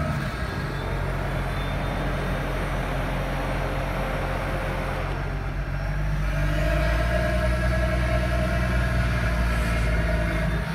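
JCB 722 articulated dump truck's diesel engine running steadily as the hydraulic rams lift the tipper body. About six and a half seconds in the engine sound grows louder and a steady whine joins it.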